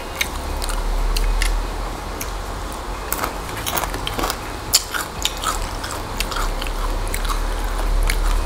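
Close-up chewing and crunching of crispy fried food, dried fish and fried shirataki rice, with many sharp crackly crunches that come thickest from about three to five seconds in.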